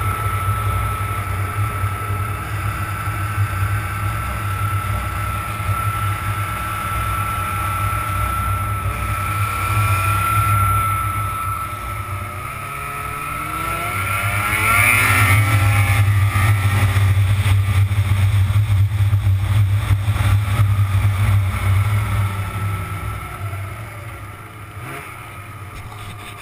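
Snowmobile engine running at speed with heavy wind rumble on the action-camera microphone, a steady high whine over it. About halfway through the pitch shifts up and down, the sound then grows louder for several seconds, and it fades away near the end.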